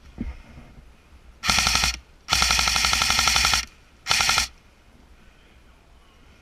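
Airsoft gun firing on full auto in three bursts of rapid, even shots: a short burst about a second and a half in, a longer one of over a second, then another short one.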